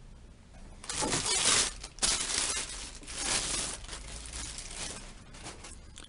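Clear plastic wrapping crinkling and crackling as it is pulled off a telescope tube. It starts about a second in, is loudest over the next three seconds and tapers off near the end.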